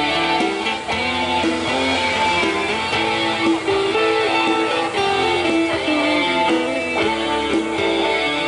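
Electric guitar playing an instrumental passage of a Thai pop song, with no singing.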